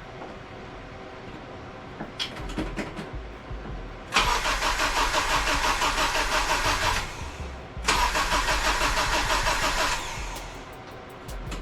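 Supercharged Acura RSX engine turned over on the starter in two cranks, about three seconds and then two seconds, never firing because its fuel injectors are unplugged. A few light clicks come before the first crank.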